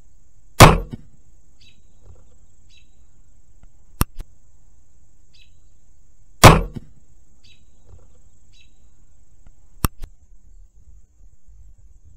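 Barnett Recruit crossbow shots: two sharp cracks of the string release, about six seconds apart, each followed a split second later by a fainter knock. Two thin clicks come a few seconds after each shot.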